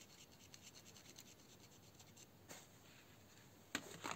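Faint rubbing and scratching of a paint marker's tip over the plastic handle of a Fiskars grafting knife, then two light knocks near the end as the knife is set down on a wooden table.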